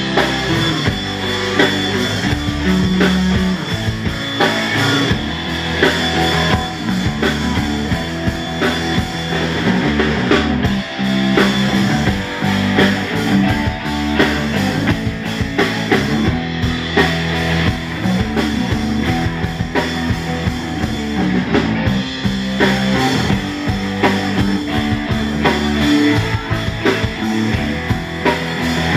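Live rock band playing: electric guitar, electric bass guitar and drum kit together, played steadily throughout.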